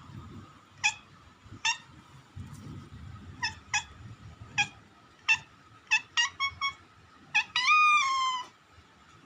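A frightened cat mewing repeatedly in short, high calls, ending with one longer meow that falls in pitch. A faint low rumble sits underneath in the first half.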